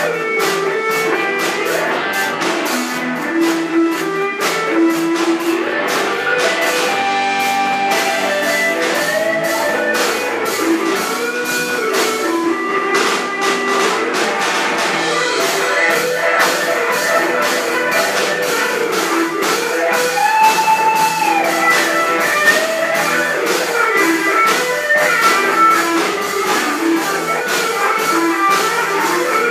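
Live rock band playing an instrumental passage: an electric guitar lead with bent, sliding notes over drum kit, bass and keyboard, with a steady driving beat.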